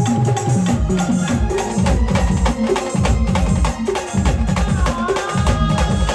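Indian brass band playing, with loud, rhythmic drum beats under a gliding melody line.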